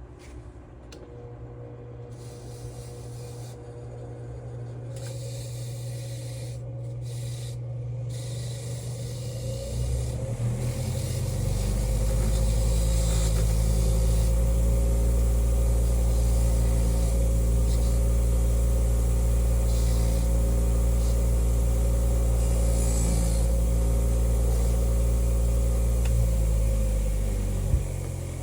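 An electric motor running with a steady low hum. It builds up over the first ten seconds or so, holds steady, and cuts off just before the end, with some rubbing or grinding mixed in.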